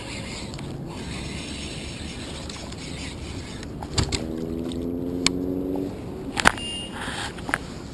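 A fishing reel whirs for about two seconds midway, its pitch creeping slightly up, among several sharp clicks and knocks, over a steady hiss of wind and water.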